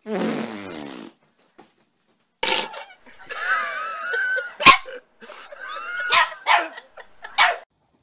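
A buzzing fart lasting about a second, then a dog barking in a run of short, sharp calls, several with a rising-and-falling pitch.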